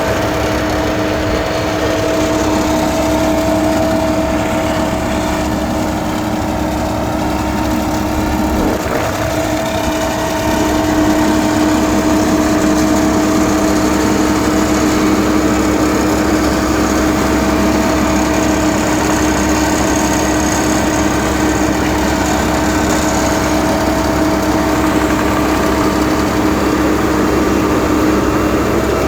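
Engine of paving machinery running steadily, with a constant hum, getting a little louder about a third of the way in.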